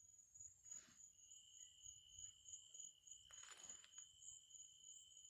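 Night insects such as crickets trilling steadily at two high pitches. Two short rushes of noise break in, about one second and three and a half seconds in.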